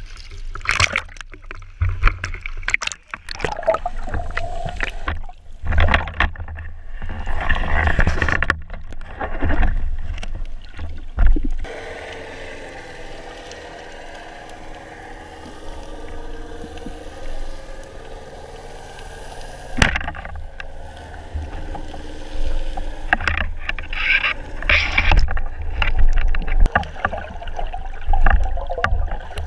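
Water heard through a GoPro's waterproof housing: loud splashing and sloshing at the surface for the first dozen seconds, then a muffled underwater hush broken by a single sharp click about twenty seconds in, and irregular knocks and rustling near the end.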